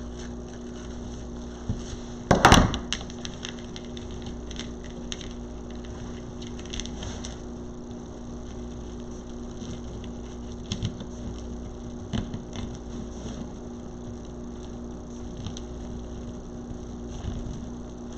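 Quiet handling of ribbon on a wreath frame: faint rustling and small clicks, with one louder knock about two and a half seconds in. A steady low electrical hum runs underneath.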